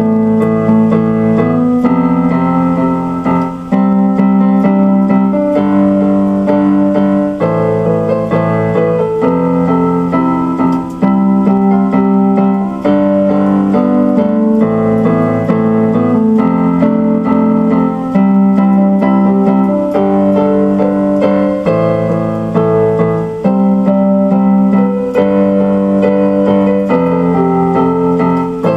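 Electronic keyboard on a piano sound playing slow instrumental music: sustained chords over a bass note that change about every two seconds, with a melody of shorter notes on top.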